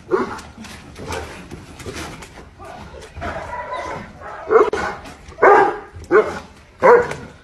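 Bark-like animal calls that come and go, with four loud, short ones in the second half.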